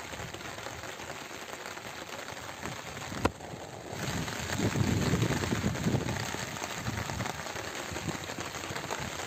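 Rain falling steadily on a terrace garden, a dense crackling hiss of drops on leaves, pots and the wet floor. A single sharp click comes about three seconds in, and a louder low rumble follows for a couple of seconds around the middle.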